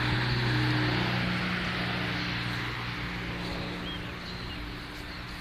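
Low steady engine hum that slowly fades away, over outdoor background noise.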